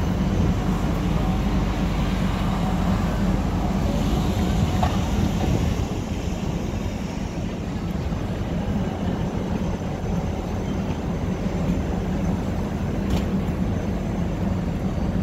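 Busy street traffic ambience: a steady low rumble of buses and cars moving close by.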